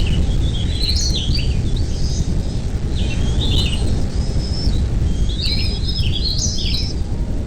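Bird chirping in short, warbling phrases of high notes, in several bursts, over a steady low rumble.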